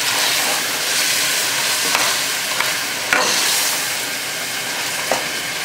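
Chicken masala with fried onions sizzling in a metal pot as it is stirred with a metal spoon, which clinks sharply against the pot a few times, loudest about three seconds in.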